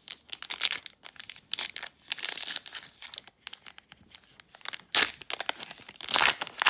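Foil wrapper of a Donruss Optic basketball card pack crinkling in the hands and being torn open, with the two loudest rips about five and six seconds in as it comes apart.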